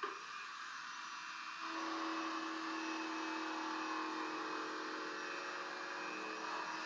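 Small handheld power tool with a bit running steadily against old painted wood, cleaning paint out of a groove in a mantel column; a steady whine over a grinding hiss that gets a little louder about a second and a half in.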